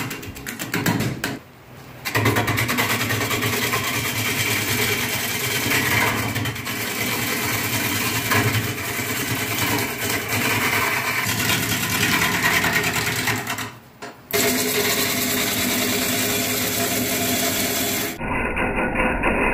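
Wood lathe spinning a forked crotch-wood blank while a gouge cuts into it: a loud, steady rough cutting noise. It drops away briefly about one and a half seconds in and again about fourteen seconds in, and the sound changes abruptly near the end.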